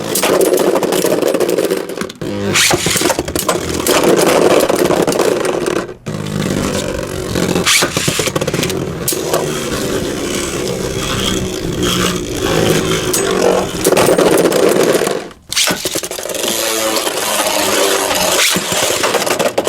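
Beyblade Burst spinning tops whirring and grinding as they spin and clash in a plastic stadium, with frequent sharp knocks of top against top and against the stadium walls. The sound breaks off briefly about two seconds in, again about six seconds in, and near the end.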